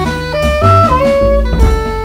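Jazz trio of soprano saxophone, double bass and drum kit playing. The soprano sax plays a short phrase of quick notes, then settles on a long held note near the end, over low bass notes and drums.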